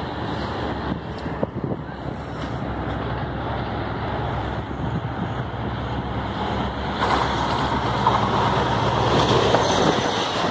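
Diesel-hauled passenger train approaching and passing along the platform: a low engine drone grows slowly louder, and about seven seconds in it gives way to the louder noise of the coaches running past.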